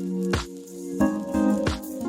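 Background music: held pitched notes over a regular beat, with a sharp percussive hit about every two-thirds of a second.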